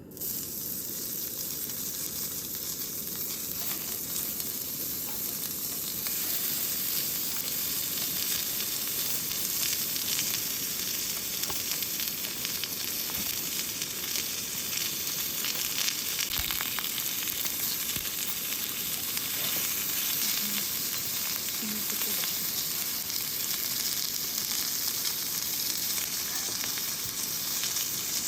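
Food sizzling in a hot pan, a steady frying hiss with a few faint ticks and pops.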